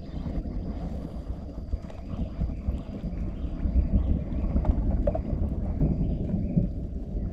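Wind buffeting the microphone: a rumbling low noise that gets louder about four seconds in, with a faint steady high whine behind it.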